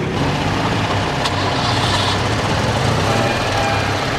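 Citroën 2CVs driving slowly past at close range, their small air-cooled flat-twin engines running steadily.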